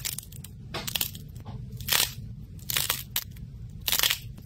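Soft pastel slime balls being squeezed and squashed by hand, giving a burst of crackling squish about once a second.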